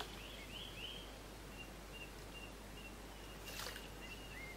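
Small birds chirping in short, repeated high notes over a steady riverside hiss, with a brief burst of noise about three and a half seconds in.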